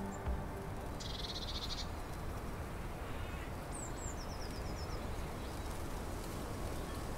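Outdoor countryside ambience over a steady low background noise: an insect gives a short, fast-pulsing trill about a second in, and a small bird calls a few high chirps and then a quick run of about five short notes around four seconds in.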